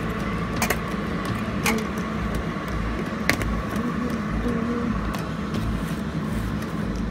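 Green plastic lid of a Milo tin handled and pressed onto the can, giving a few short sharp clicks, the sharpest about three seconds in. Under it runs a steady mechanical hum.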